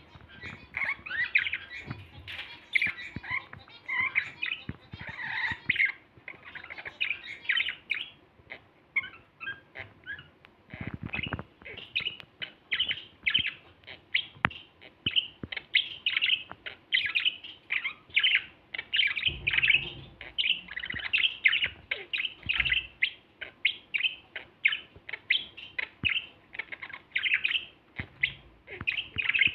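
Male budgerigars warbling: a continuous rapid chatter of short chirps, clicks and squeaky notes.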